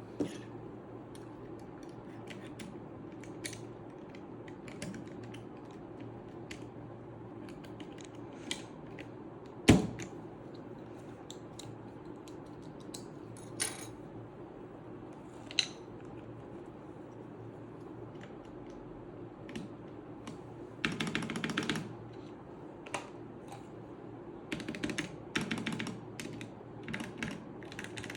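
Plastic keycaps on a Redragon K530 Pro mechanical keyboard clicking as they are handled and pressed onto the switches: scattered single clicks every second or two, one much louder snap about ten seconds in. Later come two bursts of rapid key clacking as the keys are pressed in quick succession.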